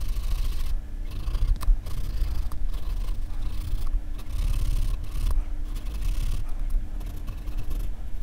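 Graphite pencil scratching on drawing paper in short shading strokes, coming in bursts of about a second with brief pauses, over a low rumble. There is one sharp tick about one and a half seconds in.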